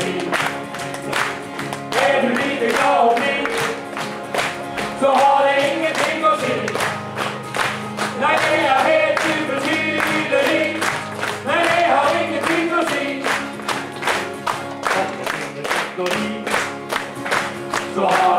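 Live group singing: a stage ensemble sings a gospel-style sing-along song together, backed by two strummed acoustic guitars in a steady beat.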